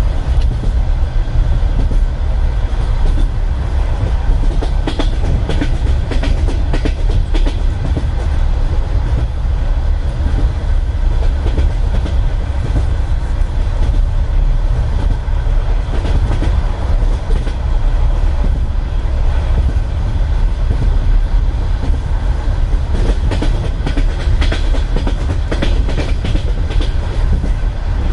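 Russian Railways passenger coach heard from inside a compartment: the steady rumble of the wheels running on the rails, with the clickety-clack of wheels over rail joints coming in two spells of sharper clacks, a few seconds in and again near the end.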